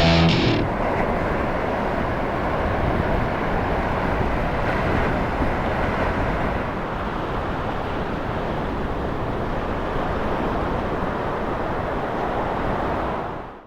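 Steady roar of ocean surf and wind at a surf beach, a dense rushing noise with no clear individual wave breaks. It fades out just before the end.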